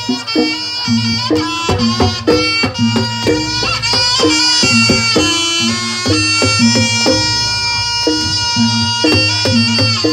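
Javanese jaranan ensemble music: a shrill double-reed wind instrument playing a long, held melody line over drum beats and metallic gamelan strikes.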